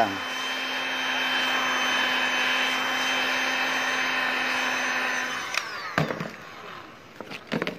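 Hot-air blower running steadily with a whine while heating the back of an HID ballast. It stops about five and a half seconds in, its pitch falling as it winds down, and a few knocks follow.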